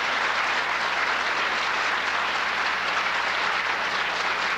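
A large audience applauding steadily: dense, even clapping from a packed hall.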